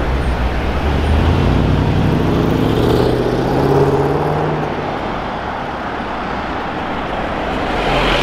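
Range Rover Sport SVR's supercharged 5.0-litre V8 accelerating away, its exhaust note rising in pitch for a few seconds and then fading as the car pulls off, over steady street traffic.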